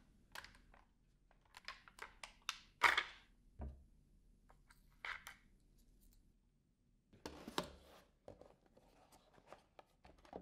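Sharp plastic clicks and knocks as a Dyson Hair screw tool is taken apart by hand: its red catch is released and the neck assembly pulled off, with the loudest snap about three seconds in. Later come more knocks and rustles as the parts are handled over a cardboard box.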